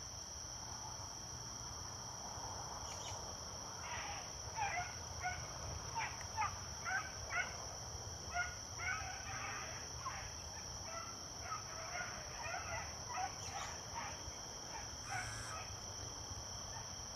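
A pack of beagles baying in chase, giving voice on a rabbit's trail: many short, irregular bawls and yelps, sparse at first and coming thick and fast from about four seconds in. Insects keep up a steady high buzz behind them.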